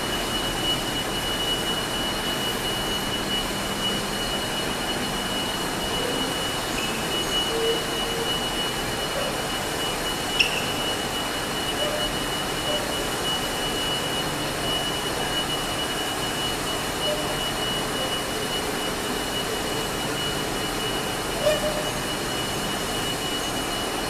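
Underground metro station ambience: a steady rushing hum with a constant high-pitched tone over it. A brief sharp click about ten seconds in, and a smaller one near the end.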